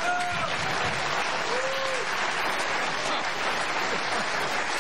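Studio audience applauding and laughing after a punchline, steady throughout, with a couple of brief raised voices over it.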